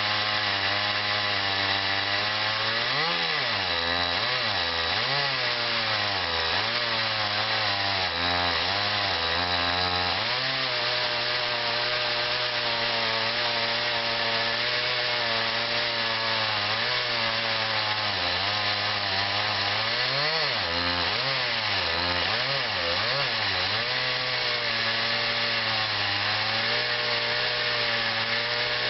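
Chainsaw in an Alaskan chainsaw mill ripping lumber lengthwise through a log. The engine runs steadily at cutting speed, with its pitch sagging and recovering several times in the first ten seconds or so and again about twenty seconds in as it works under load.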